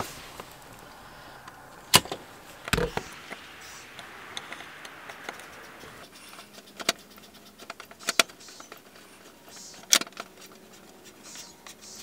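Sharp, scattered clicks and knocks of handling a grey plastic weatherproof in-use outlet cover as it is fitted over an outdoor GFCI outlet box and screwed down with a hand screwdriver.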